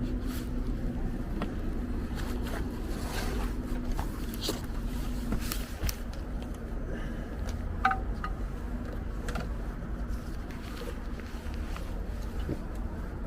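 Steady low rumble with a faint hum in the first few seconds and scattered light clicks and knocks of parts and tools being handled.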